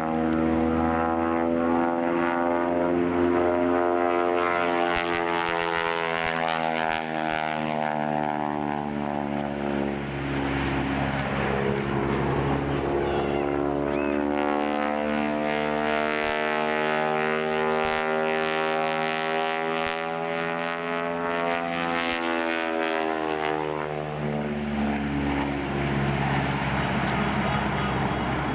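Aerobatic biplane's piston engine and propeller running hard through a display routine, a steady drone whose pitch falls and rises several times as the plane climbs, dives and passes.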